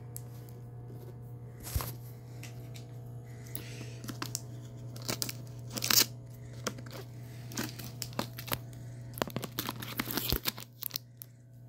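A USPS cardboard shipping box sealed with clear packing tape being torn open by hand: irregular tearing, crinkling and scraping of tape and cardboard, over a low steady hum.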